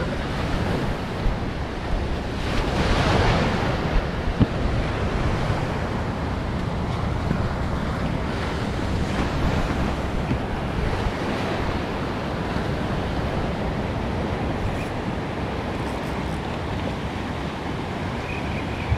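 Ocean surf breaking on a sandy beach, with wind buffeting the microphone; the surf swells louder about three seconds in.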